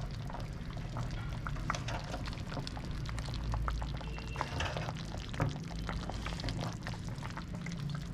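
Chicken stew with potatoes, peas and carrots simmering in a pot on the stove, with many small irregular bubbling pops over a steady low hum.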